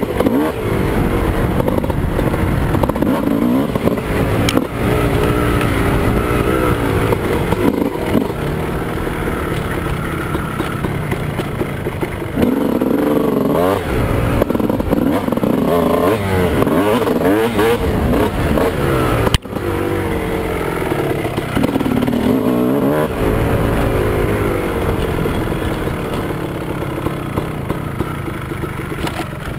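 2001 Honda CR250's 250cc two-stroke single-cylinder engine, fitted with a Steahly 10 oz flywheel weight, revving up and down over and over under changing throttle, heard from a helmet camera. A single sharp knock comes about two-thirds of the way through.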